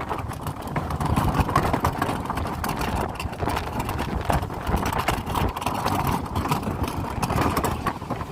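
Strong gusty wind buffeting a GoPro's microphone: a continuous low rumble that swells and drops with the gusts, broken by frequent short crackles.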